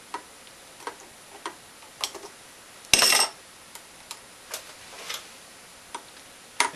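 Light irregular clicks and small metallic clinks as piston rings and hand tools are handled on a workbench, with one louder, briefly ringing clink about three seconds in.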